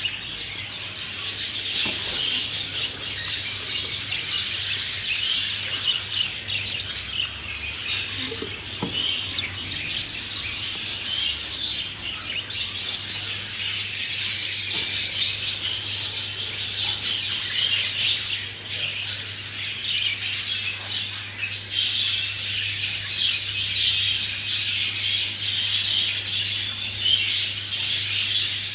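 Budgerigars chattering: a dense, unbroken mix of warbling and chirping from many birds together, over a steady low hum.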